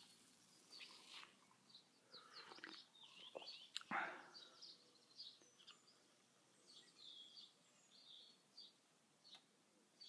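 Faint birds chirping, many short calls, with a few soft scrapes and one sharp click or knock about four seconds in.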